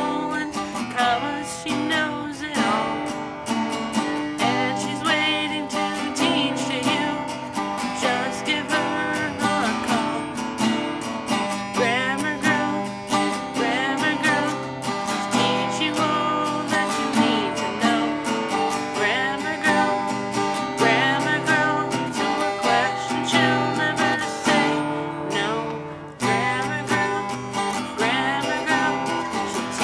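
Music led by a strummed acoustic guitar, playing steadily, with a short dip in level near the end.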